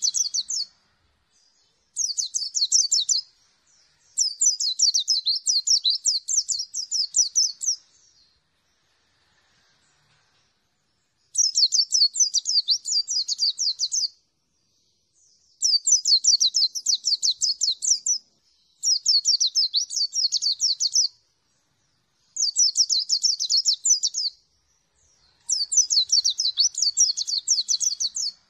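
A caged white-eye (pleci) singing loud, fast, high-pitched warbling song in about eight bursts of one to four seconds each, with short pauses between them and a longer pause about eight seconds in.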